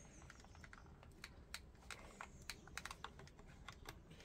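Faint, irregular light clicks and taps of a screwdriver working at a plastic clip on an RC car chassis.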